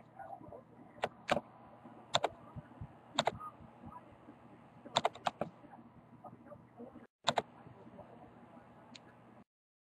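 Sharp clicks from a laptop as it is worked by hand, many in quick pairs, with gaps of a second or so between them. The sound cuts to silence near the end.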